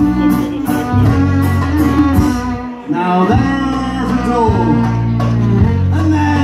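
Live folk-rock band playing: fiddle and acoustic guitar over a steady beat. The music drops back briefly just before halfway, then a man's singing comes in over the instruments.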